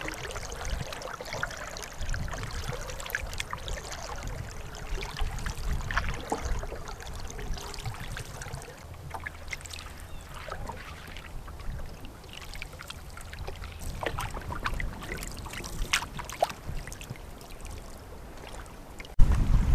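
Canoe paddling: irregular small splashes and water dripping off the paddle blade, with water lapping against the hull. Near the end, wind rumbling on the microphone starts suddenly.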